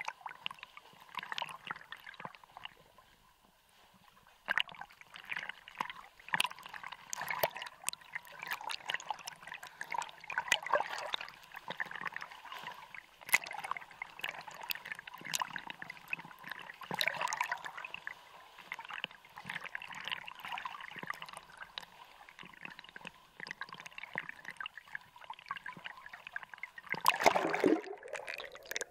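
Water sloshing and splashing against a handheld action camera at the surface while swimming, with scattered sharp clicks and gurgles. Near the end, a louder gurgling rush as the camera goes under, after which the sound turns muffled.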